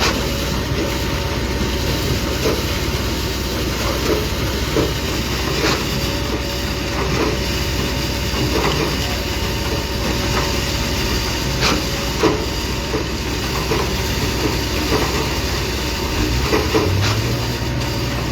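Heavy diesel construction machinery running steadily, with repeated sharp metallic knocks and clanks. The engine note steps up near the end.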